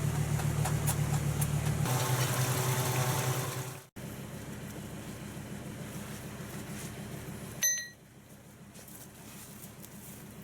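Vehicle engine idling steadily. The sound drops out abruptly about four seconds in and comes back quieter, with a brief high-pitched squeak near the end.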